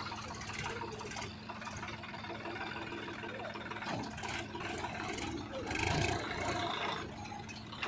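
Diesel engine of a backhoe loader running steadily at a low, even pace. The sound gets rougher and louder from about four seconds in, peaking near six seconds.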